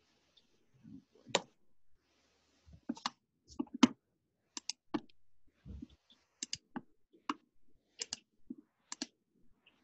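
Irregular sharp clicks of someone working at a computer's keyboard and mouse, several coming in quick pairs, with a few soft low thumps among them.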